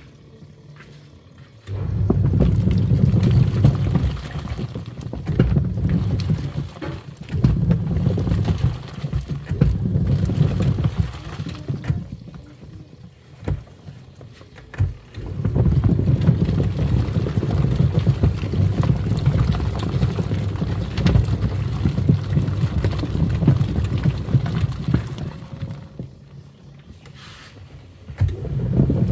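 Twin-tub washing machine's wash tub churning water and foam with toy animals inside, a low sloshing run that comes in long stretches with quieter pauses at the start, about halfway in and near the end.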